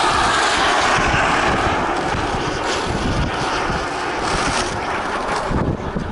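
Radio-controlled combat flying wings in flight, their motors and propellers buzzing with a pitch that sweeps up and down as they pass, over wind rumble on the microphone.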